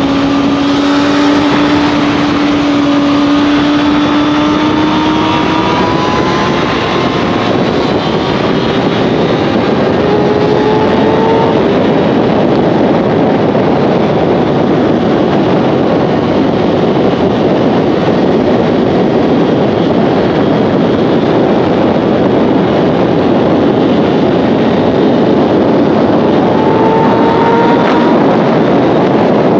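Motorcycle engine under way, its pitch climbing slowly as it accelerates over the first dozen seconds and rising again briefly near the end, under heavy wind rush on the microphone.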